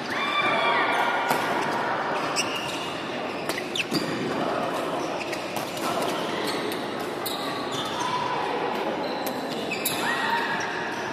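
Badminton play echoing in a large hall: sharp pops of rackets striking shuttlecocks and brief squeaks of court shoes on the wooden floor, over a background murmur of voices.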